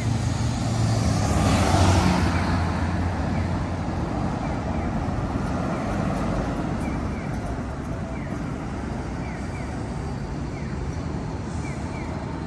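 Street traffic: a vehicle passes close, loudest about two seconds in, over a steady low engine hum.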